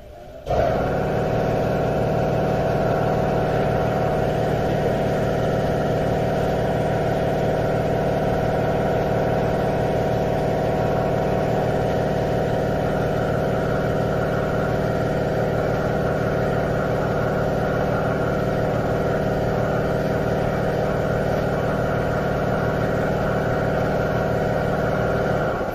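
A machine running steadily at one unchanging pitch, a constant humming drone. It starts abruptly about half a second in and cuts off suddenly near the end.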